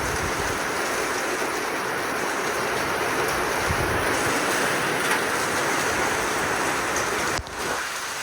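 Squall line's strong wind and heavy rain making a steady, loud roar, with low rumbling gusts now and then and a brief dip about seven and a half seconds in.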